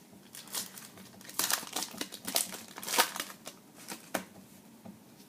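Trading-card pack wrapper being torn open and crinkled by hand: a run of irregular crackling rustles, loudest about a second and a half in and again about three seconds in.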